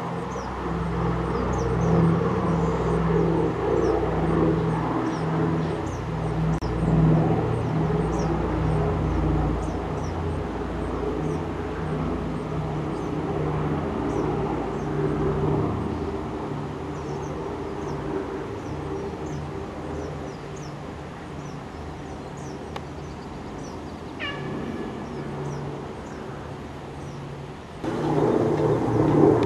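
Four radial piston engines of a B-24 Liberator bomber droning steadily in flight, slowly fading over the second half, with small birds chirping. Near the end a cut brings in the louder drone of a B-17 Flying Fortress's radial engines.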